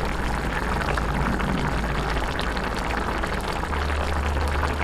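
Tomato broth with milkfish and string beans simmering in a pan, a steady fizz of fine bubble pops over a low hum.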